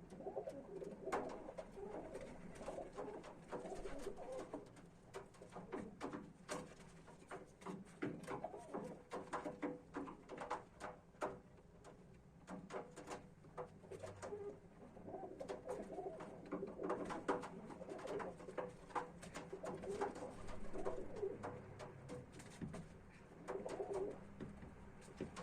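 Feral pigeons cooing repeatedly at close range, with frequent sharp taps and clicks mixed in as they scuffle at the feeder.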